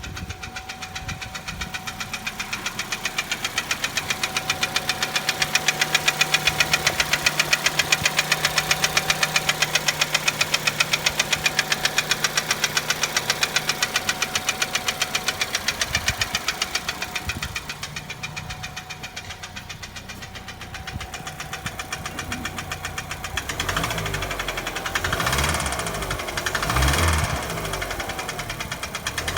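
Chevrolet Cruze 1.8 four-cylinder petrol engine running with a rapid, regular metallic knock, louder through the middle, with the engine note wavering in the last few seconds. The uploader puts the knock down to a broken connecting rod.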